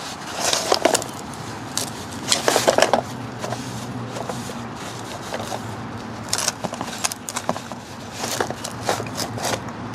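Shop rag rubbing and wiping a removed piston and connecting rod, with the parts handled and shifted on cardboard: irregular short bursts of rustling and scraping, loudest about half a second and two and a half seconds in.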